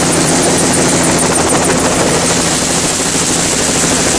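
Helicopter running on the ground with its rotor still turning: a loud, steady rotor and turbine noise with a thin high whine over it.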